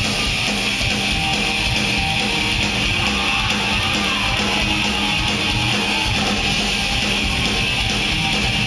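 Live band playing loud and steady: electric guitar over a slapped upright bass and drums.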